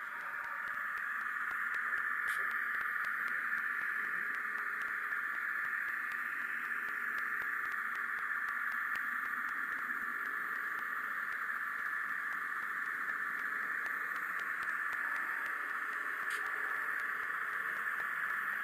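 A steady hiss like radio static, with two faint ticks, one early and one near the end.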